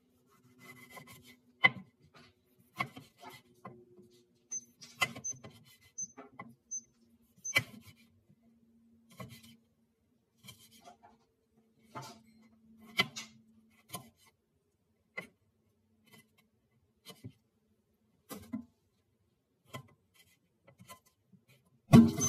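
Kitchen knife slicing through a tomato onto a plastic cutting board: irregular sharp knocks as the blade strikes the board, one every half second to a second, with quiet between strokes. A louder thump comes right at the end.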